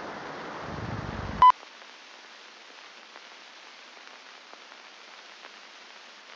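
Static hiss with a low rumble swelling under it, cut off about a second and a half in by a short, loud, high beep. After the beep a fainter hiss with light crackles carries on.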